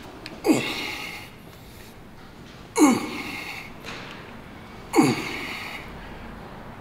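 A man's hard, forceful exhales of effort during a set of weight-machine reps, three in a row about two seconds apart. Each one starts sharply and drops in pitch.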